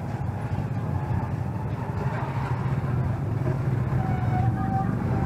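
A motor vehicle engine running steadily with a low rumble.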